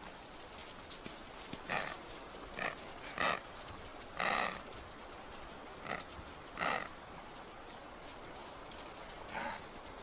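Adélie penguins giving short, harsh squawking calls, about seven of them spaced irregularly, over a faint steady hiss.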